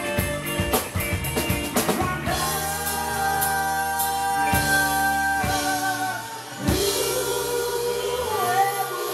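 Live rock band playing: drum kit and electric guitar, with a male singer holding long notes. It opens with a run of quick drum hits, then the voice sustains long notes over the band.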